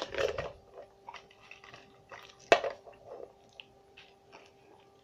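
Faint handling clicks and rustles at a table, with one sharp knock about two and a half seconds in, over a steady faint hum.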